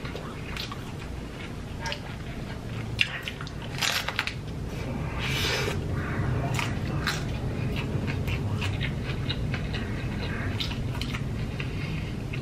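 A person chewing and biting into tacos, with irregular mouth clicks over a low steady hum.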